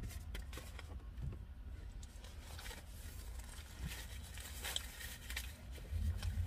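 Eating sounds: scattered small chewing clicks and the crinkle of fast-food packaging over a steady low rumble.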